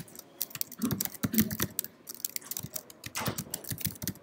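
Typing on a computer keyboard: a quick, irregular run of key clicks as code is entered in a text editor.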